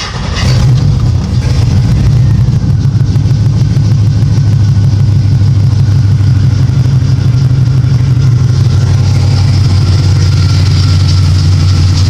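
A vehicle engine starts up and then runs steadily at idle with a loud, deep drone.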